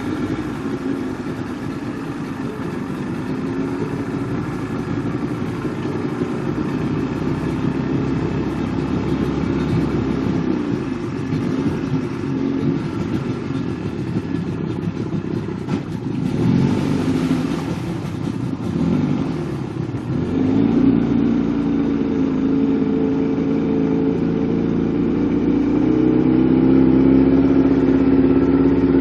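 Motorboat engine running steadily, with a brief rushing noise about sixteen seconds in; a few seconds later the engine settles into a louder, steadier note at higher speed.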